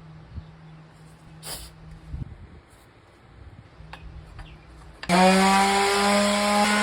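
An electric power tool's motor switches on about five seconds in and runs loud and steady, its pitch rising briefly as it comes up to speed. Before that there is only a faint hum and a few light knocks.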